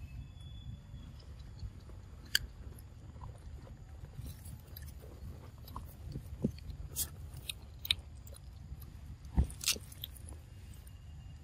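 Scattered small clicks and crackles from a long-tailed macaque foraging on ground strewn with dry leaves, over a steady low rumble; the sharpest cluster of clicks comes about nine and a half seconds in.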